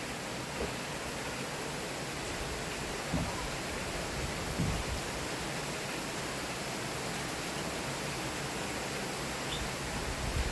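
Heavy rain falling in a steady downpour: an even hiss, with a few faint taps of drops striking nearby surfaces.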